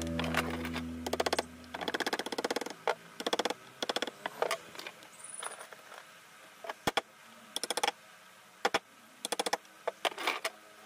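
Hand carving chisel working wood: a series of short, irregular scraping clicks, each a quick rattle, with pauses between strokes. A held musical note fades out over the first two seconds.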